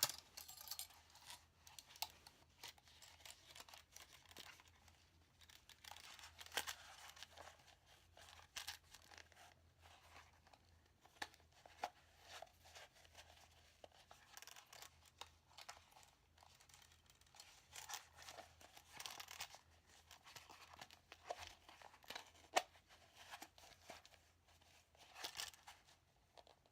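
Faint, irregular rustling, scraping and small clicks of steel handcuffs being pushed and worked into a handcuff case that is too tight for them.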